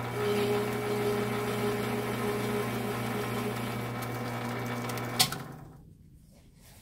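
Metal lathe running with a steady hum while its tool chamfers the edge of a knurled brass knob. About five seconds in, a click as the machine is switched off, and the sound dies away as the spindle stops.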